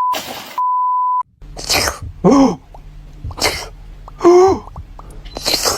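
A steady beep tone, heard twice in the first second or so, like an edited-in censor bleep. Then a run of three sneezes, each a sharp burst followed by a short pitched cry.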